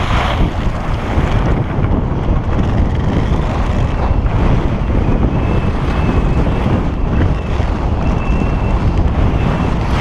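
Heavy wind buffeting the camera microphone at high skiing speed, with the skis running over hard snow beneath it. A steady, loud rush throughout, with a faint thin whistle coming and going in the middle.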